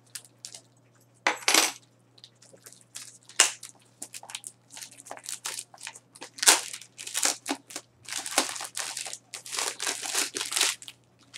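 Plastic packaging being slit open with a house key and pulled off, crinkling and tearing in irregular crackling rustles.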